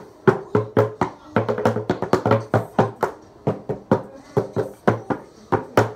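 Bucket drumming: upturned plastic buckets, damped with blankets and pillows, struck in a quick steady rhythm of about four to five hits a second, mixing sharp cracks with deeper thuds.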